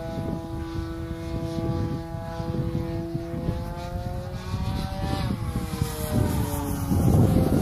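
Electric RC Super Decathlon's D-Power 40-06 brushless motor and propeller whining in flight, the pitch rising slowly to a peak about five seconds in and then falling. Wind rumbles on the microphone, louder near the end.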